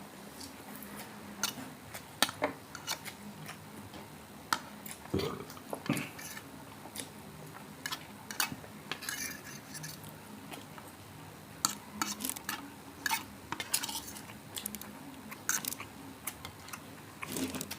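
Eating utensils clinking and scraping against plates in scattered sharp clicks, with short clusters of clatter throughout.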